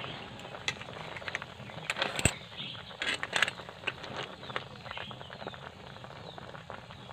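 Shells clacking against each other and a metal pot as a ladle stirs boiled mixed shellfish in bubbling broth. The clicks are loudest in a cluster about two to three and a half seconds in.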